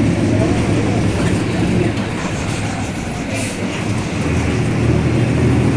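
Mercedes-Benz 1724L bus running along, its engine and drivetrain giving a steady low drone with the differential droning very loudly. The sound eases off a little midway and builds again toward the end.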